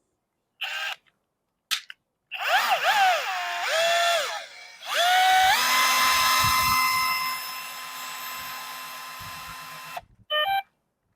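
Festool CXS cordless drill motor whining: two short trigger blips, then the speed wavering up and down before it settles into a steady run that gets quieter and stops, followed by one more short blip.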